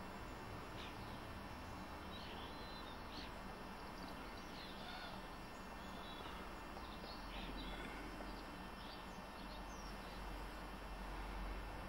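Steady low background noise with faint bird chirps dotted through it, short high calls every second or so.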